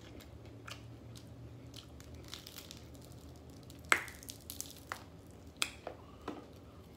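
Close-up chewing of fried chicken and meat being torn from the bone by hand: scattered wet clicks and crunches, the sharpest crunch about four seconds in.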